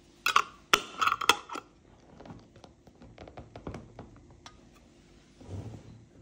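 Metal twist-off lid clattering onto the rim of a glass jar with a brief metallic ring, then a series of small clicks as it is screwed tight; near the end a dull knock as the filled jar is set down on a wooden table.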